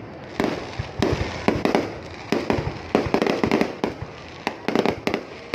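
Fireworks going off: an irregular, rapid string of sharp bangs and crackles, several a second in clusters.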